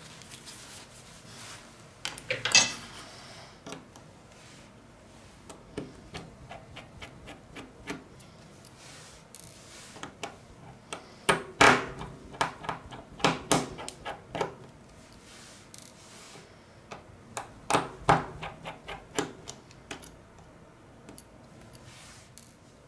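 Light clicks, taps and scrapes of a Samsung Galaxy S Duos S7580 smartphone's small plastic parts being handled and pried apart during disassembly. There is a brief scrape a couple of seconds in, and quick runs of clicking around the middle and again near the end.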